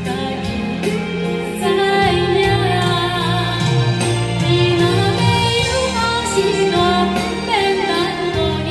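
A woman singing a ballad into a handheld microphone over a karaoke backing track, the music growing louder about two seconds in.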